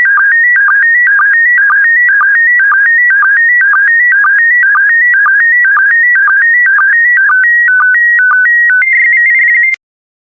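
PD120 slow-scan television (SSTV) signal: warbling audio tones that step between pitches, with a low sync dip repeating about twice a second as each pair of picture lines is sent. These are the last lines of an image. Near the end the pattern breaks into a short run of alternating tones, then a steady high two-tone warble, which cuts off abruptly as the transmission ends.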